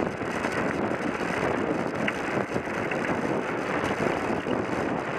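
Bicycle tyres rolling over a gravel path, with wind on the microphone: a steady rushing noise with a faint click about two seconds in.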